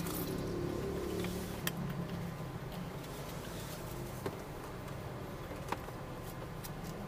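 Steady low rumble of a moving car heard from inside the cabin, with a few faint clicks.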